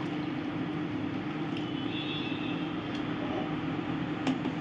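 Steady low hum with a hiss under it in the kitchen, and near the end a single knock as a wooden spoon stirring the rice strikes the side of an aluminium pressure cooker pot.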